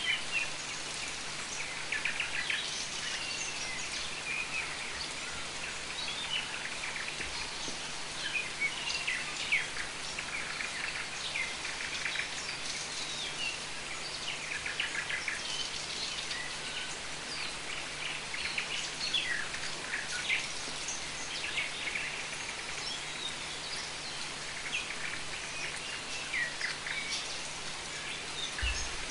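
Steady rain falling, with many birds chirping and calling throughout.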